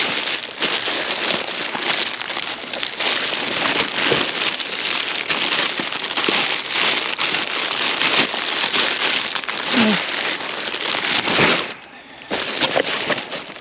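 Rummaging through a pile of scrap and junk: continuous crackling, crinkling and rustling with many small clatters, dropping away briefly near the end.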